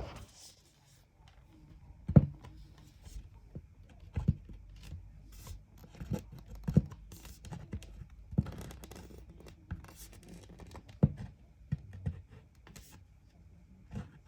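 Flat-pack furniture parts being handled and fitted together: irregular sharp knocks and taps with some scraping between them, the loudest knocks about two seconds in and again near eleven seconds.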